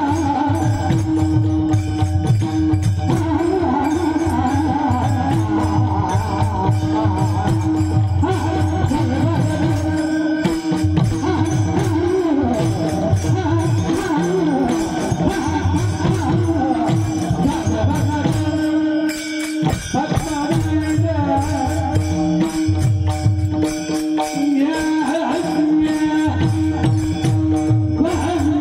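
Marathi devotional kirtan music: a man sings a wavering melodic line over a steady held drone note, with jingling percussion and a pulsing low drum.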